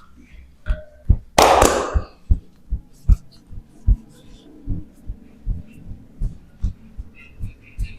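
A steady run of short, dull, low thumps, about two and a half a second, with a brief loud breathy burst about one and a half seconds in.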